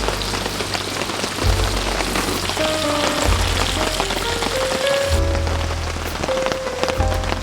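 Steady rain pattering, with background music carrying a melody and a regular bass beat.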